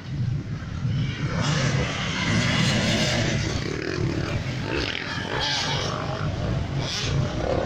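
Enduro dirt bikes running on the track, engines revving as they ride past. The sound grows louder about a second in.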